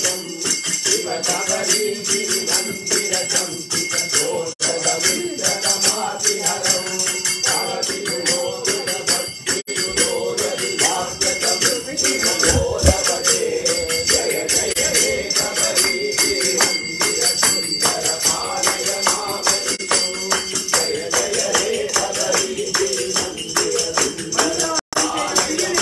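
Devotional bhajan music: rapid, steady jingling and ringing percussion with voices singing beneath it.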